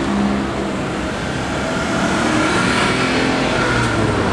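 Road traffic at a city intersection: cars and a city bus driving through, with engines running and pulling away.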